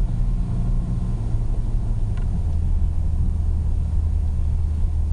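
Car engine and road rumble heard inside a moving car's cabin, a steady low drone whose engine hum drops a little in pitch about two seconds in.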